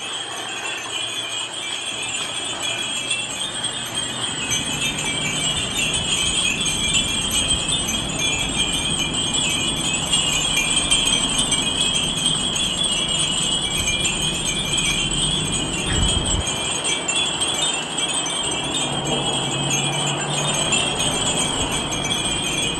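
Dozens of Japanese glass wind chimes (furin) ringing together in the wind: a continuous, dense high tinkling.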